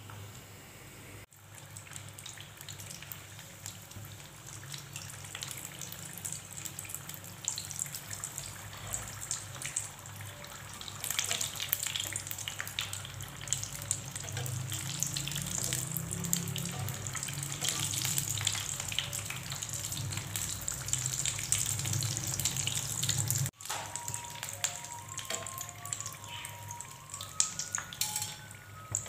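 Samosas deep-frying in hot oil: a dense crackling sizzle of bubbling oil, louder from about the middle on. Near the end the sizzle drops back and a simple background melody of stepping notes comes in over it.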